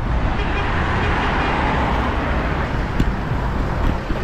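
Road traffic noise: vehicles running past with a steady rush, and one sharp click about three seconds in.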